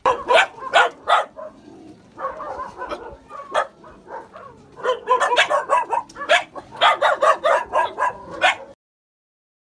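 Caged dogs barking repeatedly in quick, overlapping bursts, with some yipping; the barking cuts off abruptly near the end.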